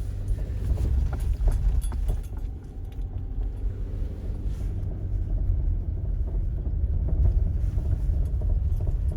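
Subaru Forester driving slowly over a rough, muddy dirt road: a steady low rumble of engine and tyres, with scattered clicks and knocks from the uneven surface.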